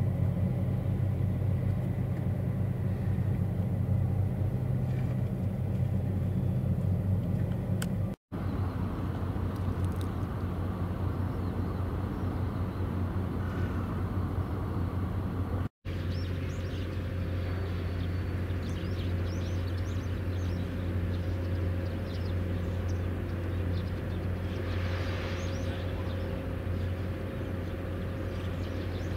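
Steady low engine drone of harbour work vessels, a floating crane and an anchor-handling boat, broken by two brief drop-outs to silence at the cuts. Faint high chirps are heard over it in the last part.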